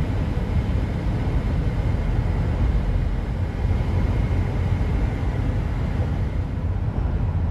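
Steady low rumble of road and wind noise inside a car driving at highway speed.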